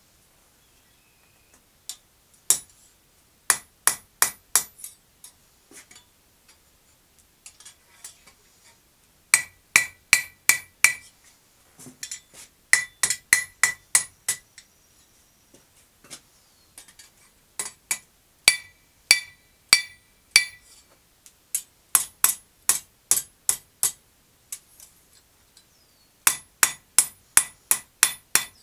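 Blacksmith's hand hammer striking hot steel on an anvil, in runs of three to six blows, about two or three a second, with short pauses between. Many blows leave a clear metallic ring.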